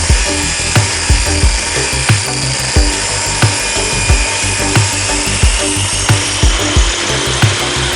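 Table saw running and ripping a live-edge board, a steady hiss of blade in wood, under background music with a steady beat.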